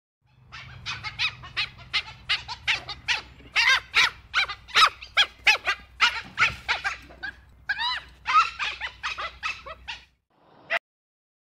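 Dhole (Asian wild dog) calling: a rapid, excited run of short high calls, several a second, that breaks off about ten seconds in and is followed by one lone call near the end. A steady low hum from the recording runs beneath the calls.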